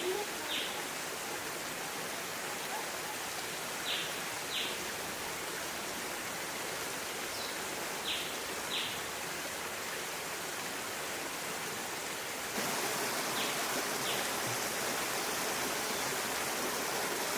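Steady rushing of a stream, with short high chirps coming in pairs about every four seconds. The rushing grows louder about twelve seconds in.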